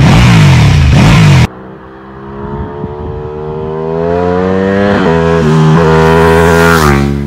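Ducati Panigale 1299 S's Superquadro V-twin, stationary, revved hard in quick throttle blips. After a sudden cut, the bike's engine note starts quieter and climbs steadily in pitch and loudness as it accelerates toward the microphone, with two brief dips, then drops in pitch as it passes near the end.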